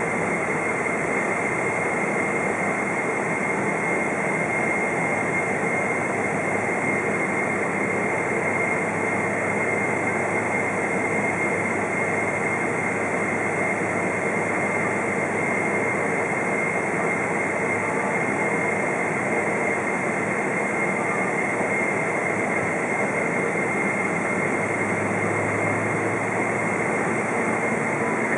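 Steady cabin noise of a KLM Boeing 777-200 taxiing, heard from inside the cabin: its GE90 jet engines' even rush with a thin, steady high whine.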